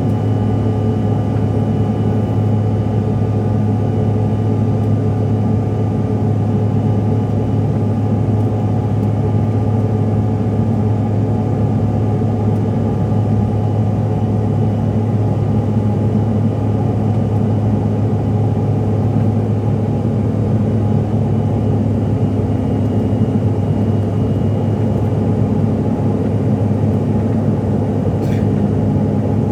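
Steady cabin noise of a CRJ-700 regional jet, a dense hum from its rear-mounted turbofan engines and the airflow, with a few fixed whining tones over a low drone.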